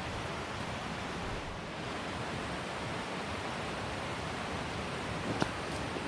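Iao Stream rushing steadily, the water running high. A single sharp click about five seconds in.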